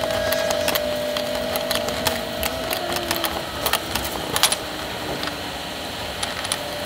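Scattered clicks and taps of a metal ring-sizing tool being pushed onto and lifted off a 200-4R center support's stator shaft to size new Teflon sealing rings. A faint steady hum stops about three seconds in.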